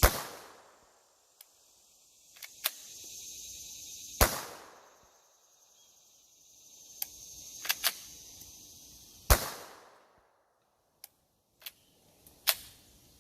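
Three single 9mm pistol shots, about four to five seconds apart, from an FN 509T with a Delta-Tek flash hider firing subsonic rounds. The slide fails to cycle on these light loads, so sharp clicks of the slide being worked by hand come between the shots.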